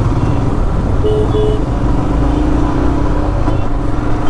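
Motorcycle engine running and road noise in city traffic, heard from the rider's seat. The engine note rises slightly in the middle. Two short high beeps come about a second in.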